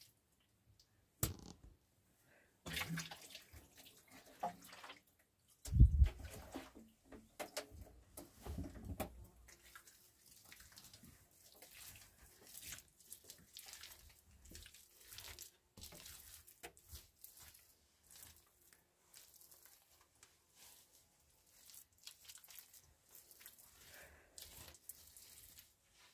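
Hands slapping and smearing wet mud plaster onto a rock wall: irregular wet squelches and scrapes, with one heavy thump about six seconds in.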